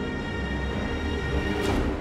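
Background music: sustained held tones over a low drone, swelling briefly near the end.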